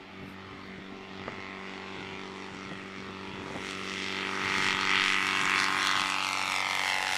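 Kitfox light aircraft's propeller engine at full takeoff power, a steady drone. It grows louder over the second half as the plane rolls down the runway and passes close by.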